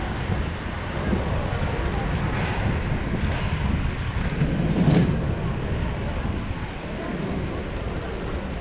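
Wind noise on the microphone of a bicycle-mounted GoPro while riding, steady throughout with a louder swell about five seconds in.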